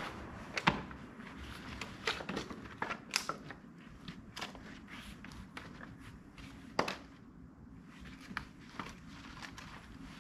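Split firewood logs knocking and clattering together as they are picked off a pile and gathered into an armful: irregular sharp wooden clacks, the loudest just under a second in and again near seven seconds.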